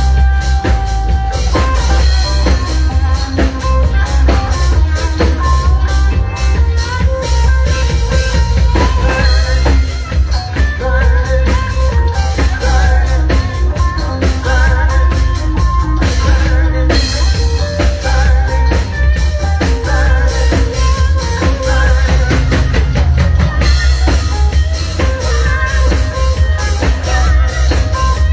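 Live band music with a steady drum-kit beat, heavy bass, guitar and possibly a singer.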